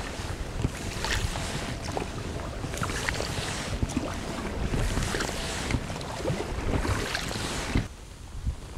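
Small boat being paddled: a swish of water roughly every second, with scattered knocks and wind on the microphone. The sound drops off suddenly near the end.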